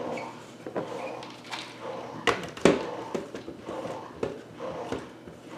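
Irregular knocks and clicks of kitchen items being handled, with the sharpest knocks a little after the middle.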